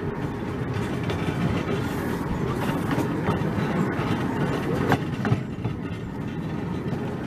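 Narrow-gauge train running, heard from an open passenger carriage: a steady rumble of wheels on the rails with clickety-clack, and a couple of sharper clicks about five seconds in.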